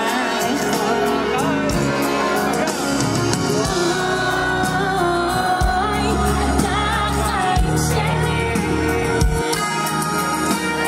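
Loud pop song: a woman singing over a band with a deep beat.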